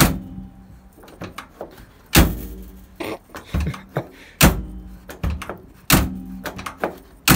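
GAZelle truck cab door being opened with its push-button outside handle and shut again about five times, each closing a solid thunk, with lighter clicks of the handle and latch in between.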